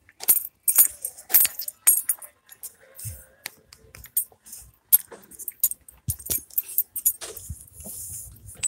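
Handling noise from a phone with its camera covered: a quick run of short sharp clicks, taps and scrapes, with a rough rustle near the end.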